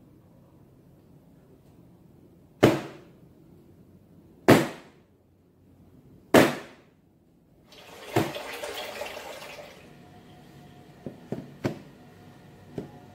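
A metal baking pan of sponge-cake batter banged down onto the table three times, about two seconds apart, each a sharp knock with a short ring, done to knock air bubbles out of the batter. A short stretch of rustling and a few light clicks follow.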